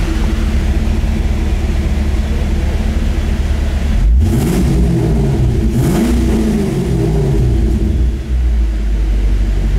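2014 Camaro SS's 6.2-litre L99 V8 idling steadily, then revved twice about four and six seconds in, the pitch rising and dropping back to idle each time, heard from inside the car's cabin.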